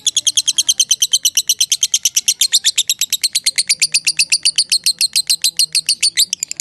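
Lovebird giving a long, fast chattering trill (the 'ngekek panjang'): shrill, high-pitched notes at about twelve a second, unbroken, with a brief hitch near the end.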